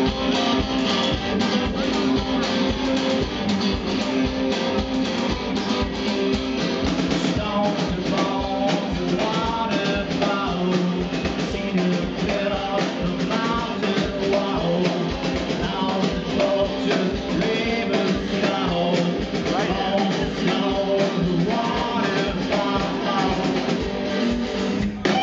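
Live rock band playing: electric guitar over a drum kit, with a bending, wavering lead melody from about eight seconds in, most likely a harmonica played into a microphone.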